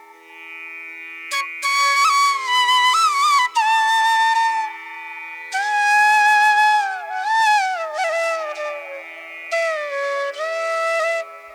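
Background music: a flute melody in several phrases, its notes sliding and bending, over a steady drone.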